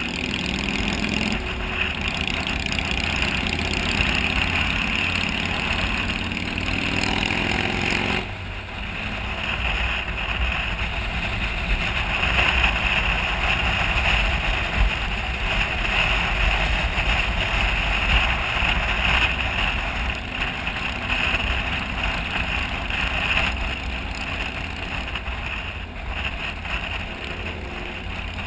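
Motorcycle riding at speed, its engine note rising steadily as it accelerates. About eight seconds in, the engine note drops away abruptly, leaving steady wind rush and road noise with low wind buffeting on the microphone.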